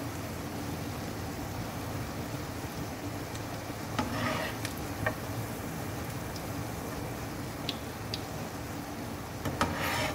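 Egg-coated potato patties sizzling steadily in hot oil in a shallow pan, with a few short clicks and scrapes of a steel slotted spoon against the pan as patties are lifted out.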